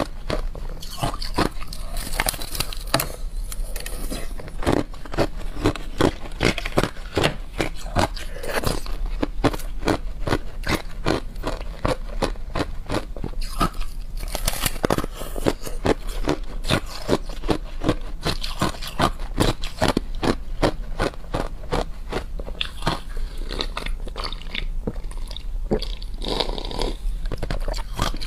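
Teeth biting and crunching through a block of clear ice, with pieces chewed up: a steady run of sharp, crisp cracks, a few a second.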